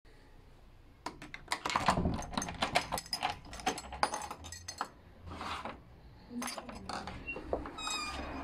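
A bunch of keys jangling and clicking against a door's lock plate as a key is fitted and turned in the lock, followed near the end by a short squeak as the door swings open.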